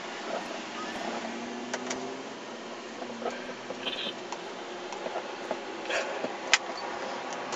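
Steady background noise inside a car, with faint muffled voices and a few small clicks.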